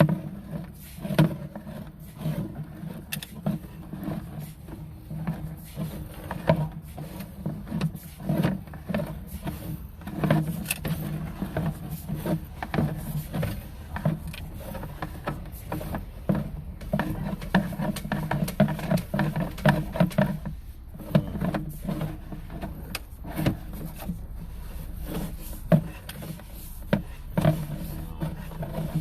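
Irregular knocks and scrapes over a steady low hum as a sewer inspection camera and its push cable are fed through a drain line.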